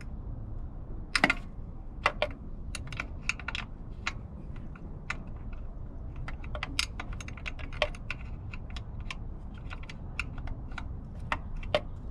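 Hand wrench clicking and tapping against a bolt and the metal inverter cover of a 2005 Toyota Prius as the bolt is loosened a little at a time. The clicks are sharp and irregular, with the loudest cluster about a second in.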